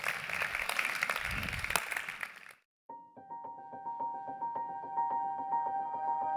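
Audience applauding, cut off after about two and a half seconds. After a brief gap, a piano-like keyboard tune with repeated notes begins.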